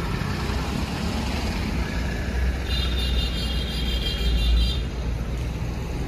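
Low, steady rumble of street traffic and wind. Near the middle a high, steady tone sounds for about two seconds.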